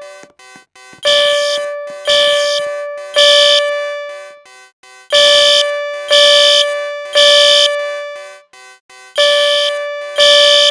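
Fire alarm sounding in the temporal-three evacuation pattern: loud tones in groups of three about a second apart, each group followed by a pause, repeating about every four seconds.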